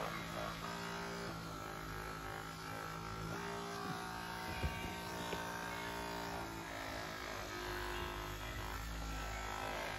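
Caresmith Charge Flex cordless massage gun running at a raised intensity setting: a steady motor buzz. Its pitch changes about three seconds in and again about seven seconds in.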